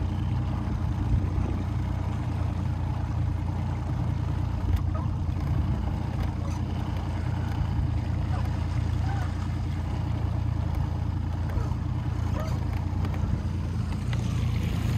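Boat motor running steadily, a constant low hum.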